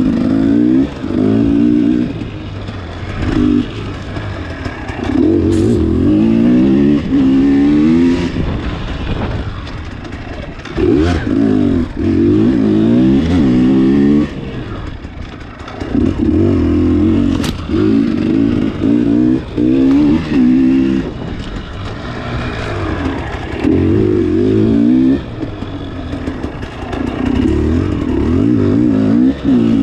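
Dirt bike engine being ridden hard: repeated bursts of throttle, the pitch climbing through each burst and stepping between gears, with the engine dropping back to a lower drone between bursts. A few sharp clicks stand out.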